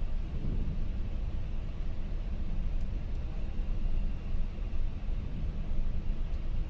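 Steady rumbling rush of flight-deck noise in a McDonnell Douglas MD-11 on approach, with flaps set at 50 for landing: airflow and engine noise heard from inside the cockpit.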